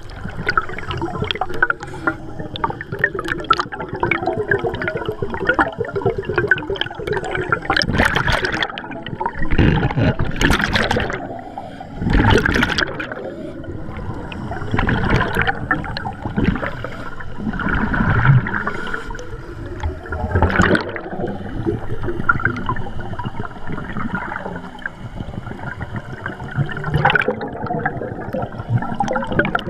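Scuba divers' exhaled air bubbling and gurgling from their regulators underwater, with louder bursts of bubbles every few seconds.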